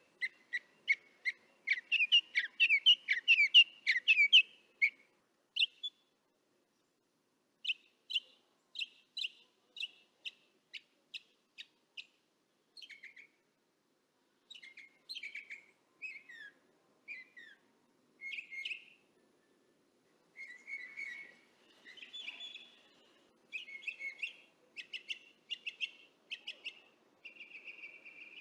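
Northern mockingbird singing, picked up with a parabolic microphone: phrase after phrase of quick, high chirping notes, each phrase repeating the same note several times before switching to a new one, with short pauses between runs.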